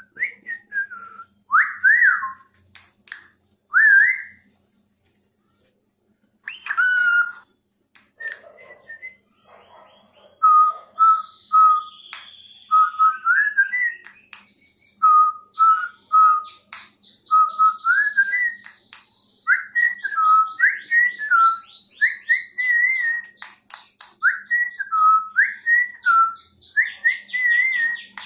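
A short tune whistled over and over in clear, pure notes, some held and some gliding up and down, with a brief break about five seconds in. From about halfway through, cockatiel chicks chirp in fast, high, repeated calls under the whistling.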